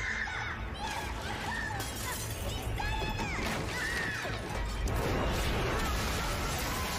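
A woman's voice shouting "Help!" and "Someone please help!" in distress over dramatic music, followed about five seconds in by a sustained loud crashing noise.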